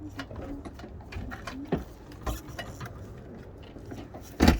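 Scattered clicks and knocks of metal parts and tools being handled while an RV propane regulator is taken off, with one loud knock near the end.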